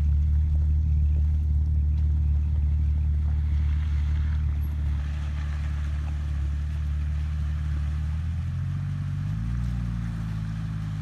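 Off-road 4x4's engine running at a low idle close by, a steady deep hum; about two thirds through, its pitch steps up slightly as it is given a little throttle.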